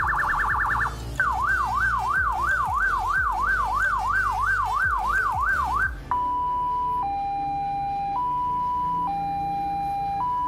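Electronic siren tones through a Federal Signal TS-200N siren speaker at a low 5% volume setting. A very rapid warble cuts off just under a second in, then a yelp rising and falling about two and a half times a second. About six seconds in it switches to a two-tone hi-lo alternating about once a second.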